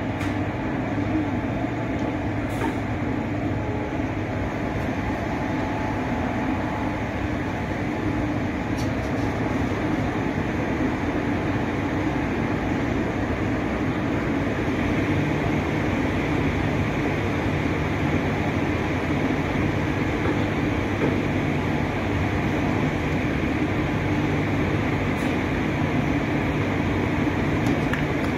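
Indian Railways passenger sleeper coaches rolling past a platform as the train pulls out: a steady rumble of wheels on the rails, growing slightly louder as it goes.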